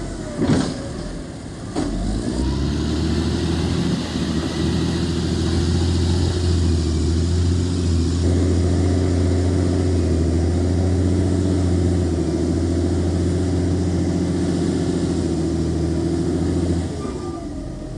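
An engine running steadily, coming in about two seconds in after a couple of knocks and dropping away about a second before the end.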